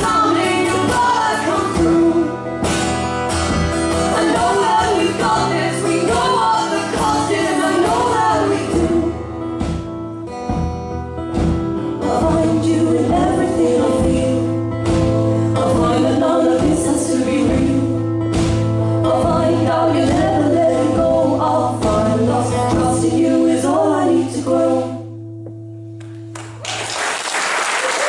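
Live acoustic folk song: two women singing over two strummed acoustic guitars. The song ends on a held final chord that rings out, and audience applause starts near the end.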